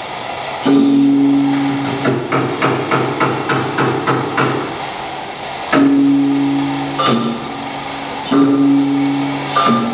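Traditional Kadazan-Dusun gong ensemble music accompanying the dance. Deep gongs are struck every second or so, each ringing on with a low hum. Early on they give way to a quick run of lighter strikes, about four a second, before the ringing gong beats return.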